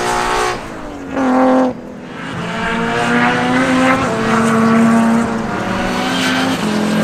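Track-day cars' engines running at high revs as they drive past on the circuit, in several short clips cut together. The engine note falls steeply about half a second in, a new loud burst starts about a second in, and from about two seconds on the note holds fairly steady, broken by brief dips.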